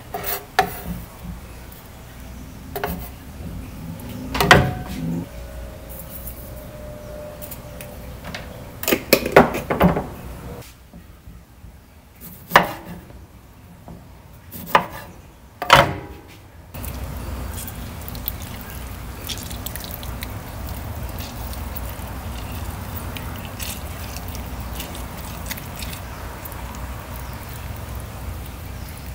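Kitchen knocks of a knife and a ceramic bowl on a bamboo cutting board while a lime is cut: about ten sharp separate knocks over the first half, one leaving a brief ringing tone. After that comes a steady low background hum.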